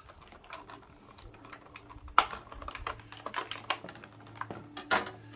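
Irregular clicks and crackles of plastic doll packaging being handled as the doll is worked out of its box, with a sharper snap about two seconds in and another near the end.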